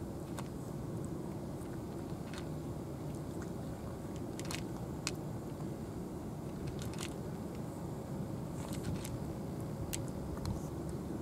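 A cat eating dry kibble from a plastic bowl, with sharp, irregular crunches as it chews. A steady low rumble runs underneath.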